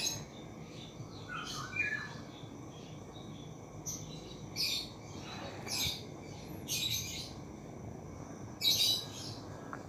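Birds chirping: about six short, high chirps at irregular intervals.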